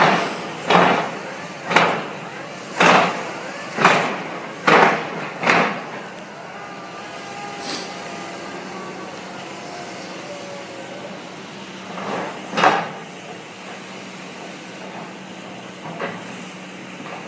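Piling rig at work on a seawall site, driving a steel cylinder into the ground. It gives a series of heavy bangs about once a second for the first six seconds, then a steady machinery hum, with a couple more bangs near the middle and one later on.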